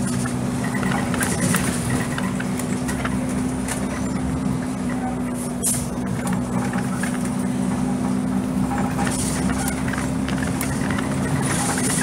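Blue Bird Xcel 102 CNG bus's John Deere 6081H inline-six natural-gas engine running at a steady speed, heard from inside the passenger cabin as a steady hum. A few short hisses and rattles come through now and then.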